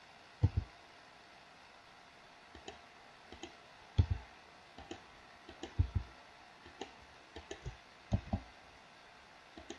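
Computer mouse and keyboard clicks: about a dozen short, irregular clicks with quiet gaps between them, as keys and mouse buttons are pressed.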